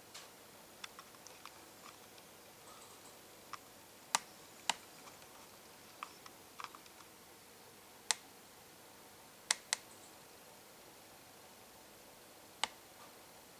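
Faint steady hiss with about a dozen sharp, irregularly spaced clicks and ticks.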